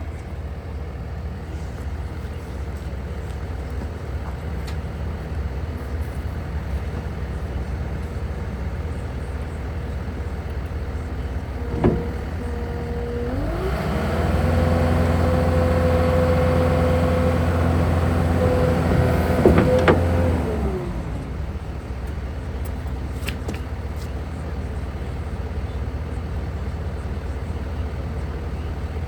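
Takeuchi TL12V2 track loader's diesel engine running at low speed, then revved up about halfway through, held high and louder for about six seconds, and let back down to idle. A sharp knock comes just before the rev-up and a few more just before it drops back.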